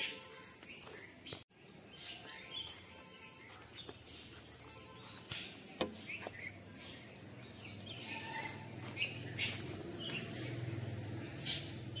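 A steady high-pitched insect drone with scattered bird chirps over it. The sound cuts out for an instant about a second and a half in.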